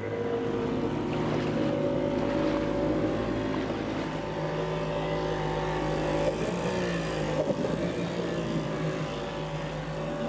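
Small outboard motor running steadily, its propeller wash churning the water to blow sand out from around a grounded yacht's hull. Its pitch wavers briefly about six to seven seconds in.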